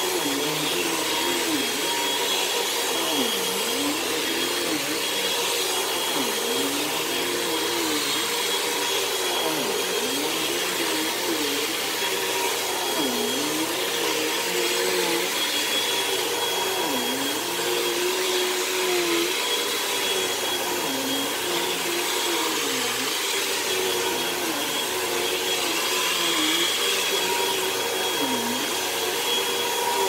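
Hoover Elite Rewind Plus bagless upright vacuum running on carpet as it is pushed back and forth: a steady whine and rush of air, with the motor's pitch dipping briefly every couple of seconds.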